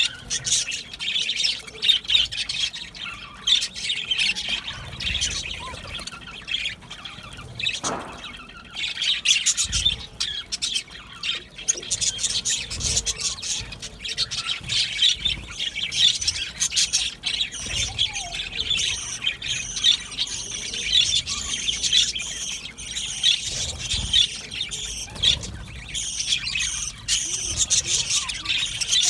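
A colony of budgerigars chattering continuously: many overlapping warbles, chirps and squawks at once.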